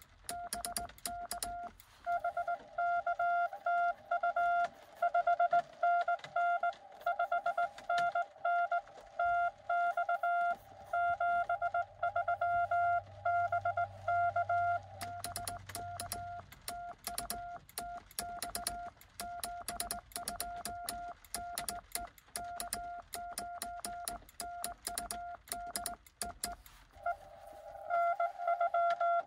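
Morse code (CW) tones of about 700 Hz from a Xiegu X6100 transceiver during an on-air contact, keyed on and off in dits and dahs. The tone is louder and fuller for the first half and again near the end. Sharp clicks run alongside.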